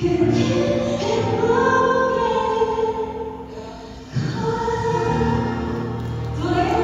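A woman singing a slow wedding song over backing accompaniment, holding long notes in several phrases, with a brief lull about halfway before the next phrase comes in strongly.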